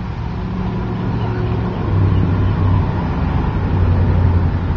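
Steady low engine hum, louder from about two seconds in.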